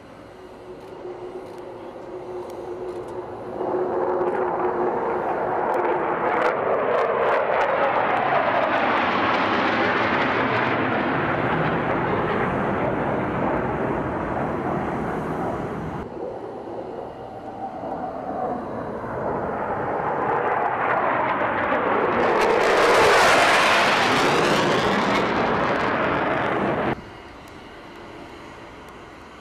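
Jet aircraft in formation flying past overhead twice: the engine noise swells as they approach and its pitch falls as they pass. The second pass cuts off abruptly near the end.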